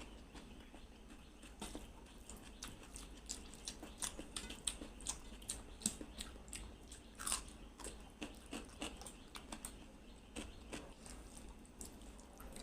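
Close-miked eating sounds of a person chewing and biting a meal of rice, egg curry and salad: a rapid, irregular run of wet mouth clicks and bites.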